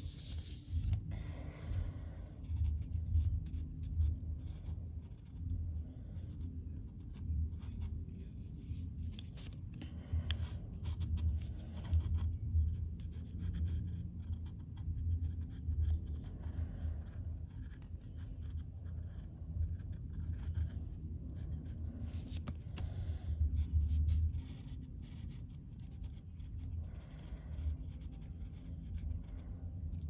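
Pen scratching on paper in short, irregular strokes as lines are drawn, over a low rumble that swells and fades.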